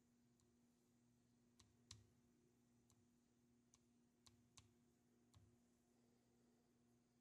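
Faint light clicks of fingertip taps on a TinySA Ultra's touchscreen, about eight taps spread over a few seconds at an uneven pace, over a faint steady hum.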